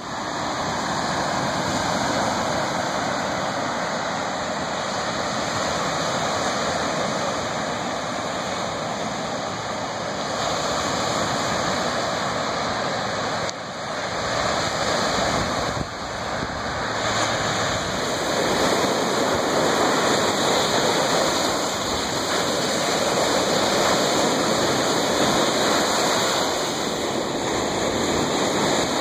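Lake Superior waves washing onto the shore: a steady rush of water that dips briefly twice in the middle and grows a little louder in the second half.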